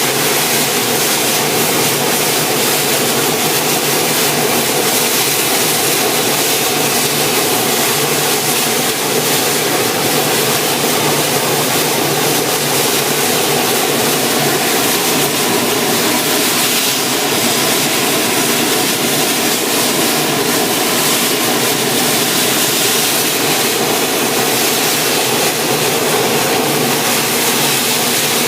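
Advance-Rumely steam traction engine running under load on a drive belt: a loud, steady rushing noise with no breaks.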